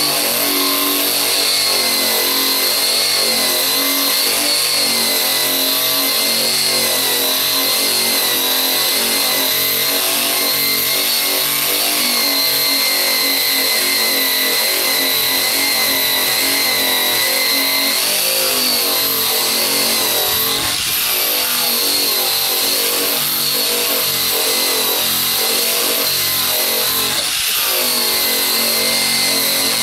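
Corded Eastwood Contour SCT surface-conditioning tool running under load, its abrasive wheel stripping paint off a car trunk lid. A steady motor whine whose pitch wavers slightly as the wheel is pressed and swept across the panel.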